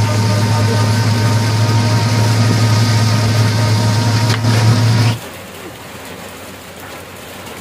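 Battery e-rickshaw (toto) in motion in the rain: a steady low hum with a few fainter steady tones and a hiss of wet road and rain. It cuts off suddenly about five seconds in, leaving only a quieter patter of rain.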